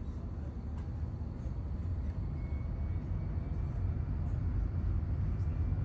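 Low, steady rumble of a passenger boat's engine, growing slightly louder.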